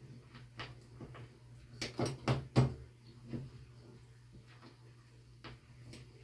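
Metal clicks and taps of a small tool working the set screw under a metal towel bar bracket as it is tightened, with a quick run of louder clicks about two seconds in.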